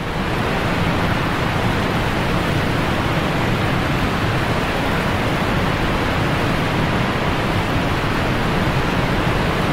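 Steady rushing noise of water spray from a park fountain, even and unbroken.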